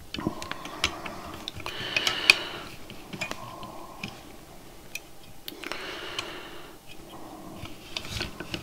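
Light clicks and taps from handling a perforated circuit board and bending its component leads, with brief rustling in between; the sharpest click comes a little after two seconds in.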